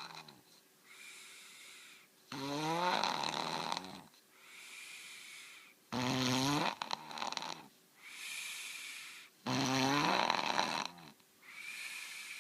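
Loud snoring in a steady rhythm. Three long, loud, pitched snores come about three and a half seconds apart, with quieter breathy sounds between them.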